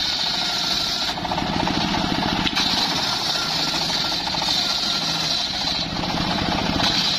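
Circular saw bench cutting teak planks: a high-pitched whine while the blade is in the wood, with the engine that drives it running steadily underneath. One cut ends about a second in, a second runs from about two and a half seconds to about six, and a third starts near the end.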